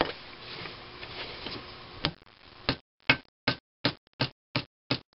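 Ball-peen hammer tapping gasket sheet against the edge of a bolt hole in a McCormick-Deering Type M engine's cast-iron cylinder head, cutting the hole out. After a soft rustle and a single knock, a steady run of light taps sets in, about three a second.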